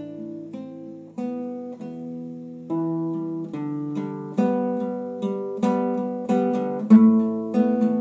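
Classical guitar played solo: picked notes and chords, sparse at first, then a steady stroke about every two-thirds of a second from a few seconds in, with the loudest strummed chord near the end.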